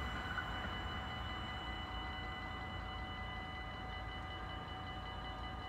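Level-crossing half-barrier arms rising after a train has passed: a faint steady hum with a few thin high tones over a low rumble, with no crossing bell ringing.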